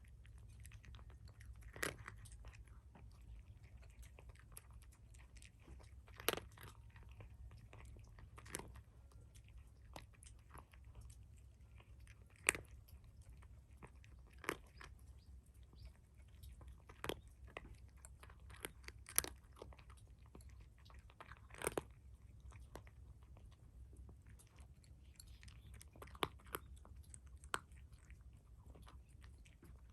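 A black-and-white cat eating, with sharp, irregular crunches every couple of seconds as it chews its food.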